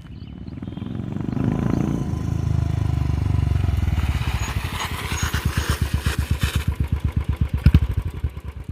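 Royal Enfield motorcycle exhaust through a Peashooter silencer with the dB killer removed. The engine runs up louder over the first few seconds, then settles into an even, rapid low thump at low revs that grows louder near the end.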